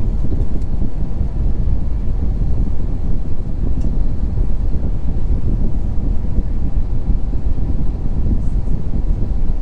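Cabin noise inside an Airbus A350 airliner: a steady, loud low rumble with no distinct events.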